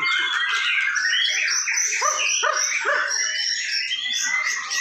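Caged white-rumped shamas (murai batu) singing at once: a dense, loud tangle of overlapping whistled phrases, rapid chirps and trills, with a few steep falling notes about two to three seconds in.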